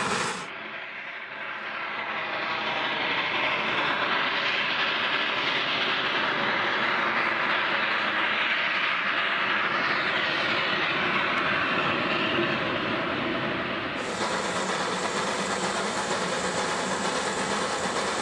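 Narrow-gauge steam locomotive working a train of freight wagons: a steady mix of exhaust and rolling noise with some hiss. The sound changes abruptly just after the start, becoming duller and more distant, and again about two-thirds of the way through, when it turns fuller and nearer.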